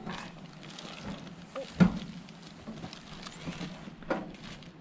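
Handling noise from a rolled inflatable paddleboard being unrolled in its clear plastic wrapping: the plastic rustles, with a dull thump a little under two seconds in and a smaller one near the end.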